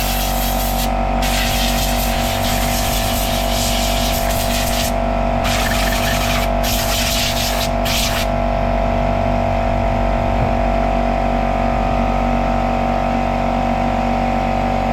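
Air compressor motor running steadily with a hum of several fixed tones, while an air blow nozzle gives loud hissing blasts, cut on and off about half a dozen times, blowing dirt out of a chainsaw. After about eight seconds the blasts stop and only the compressor keeps running.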